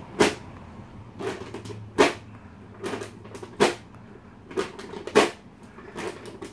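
Airzooka air-vortex cannon fired again and again: a series of short, sharp thwacks as its elastic membrane snaps forward, about one a second.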